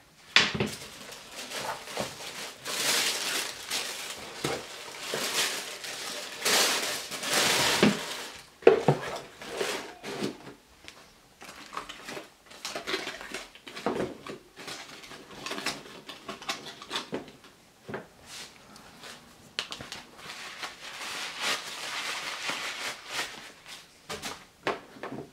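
Tissue paper rustling and crinkling as sneakers are taken out of a cardboard shoe box, with knocks and taps from the box and shoes being handled. The rustling is loudest in the first several seconds and picks up again near the end.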